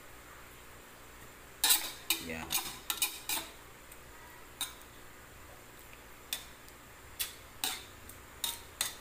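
Metal spoon knocking and scraping against a metal wok while stirring cassava leaves in coconut milk: a quick run of clinks about two seconds in, then single clinks every second or so.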